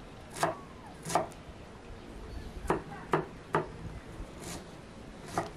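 Chef's knife chopping on a thick round wooden cutting board: about seven sharp, irregularly spaced strokes with short pauses between them.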